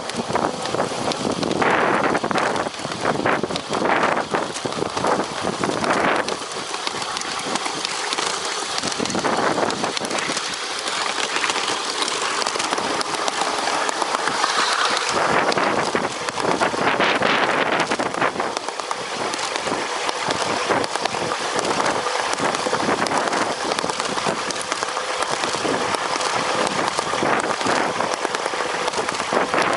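Fairmont speeder (rail motorcar) running along the track: a steady rush of steel wheels on the rails and wind, with scattered clacks in the first several seconds.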